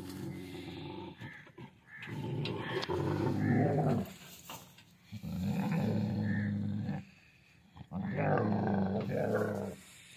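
Large dog growling in long low rumbles, about four bouts of one to two seconds each with short pauses between, directed at another dog.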